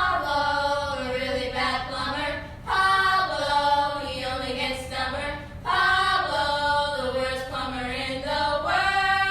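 Choir-like singing in three long held phrases of about three seconds each, the pitch sliding down and then back up within each phrase.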